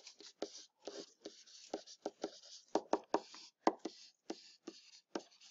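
Stylus writing on a tablet: irregular quick taps and short scratchy strokes, a few each second, as handwritten figures are put down.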